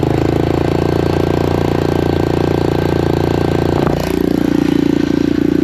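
Honda Big Red 250 three-wheeler's single-cylinder four-stroke engine running steadily after being kick-started, its note shifting about four seconds in. The carburettor's mixture screw is snapped off, so it runs really rich.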